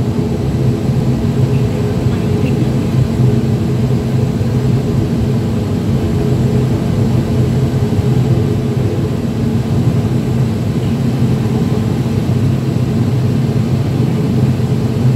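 ATR 72-600's Pratt & Whitney PW127 turboprop engines and propellers running steadily, a loud droning hum with several steady tones, heard from inside the passenger cabin beside the engine. The pitch holds level throughout, with no spool-up for the take-off roll.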